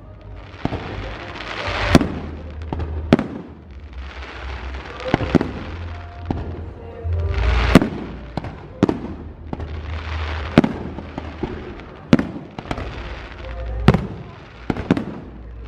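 Fireworks display: sharp shell bursts about once a second, with crackling hiss swelling and fading between the bangs over a low rumble.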